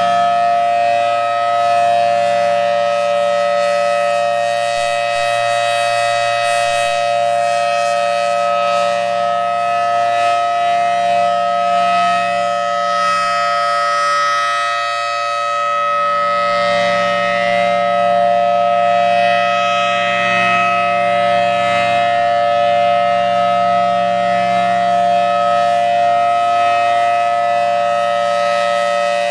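Federal Signal Thunderbolt 1000T outdoor warning siren sounding its steady alert, an extremely loud held tone that swells and dips gently in loudness as the rotating horn turns.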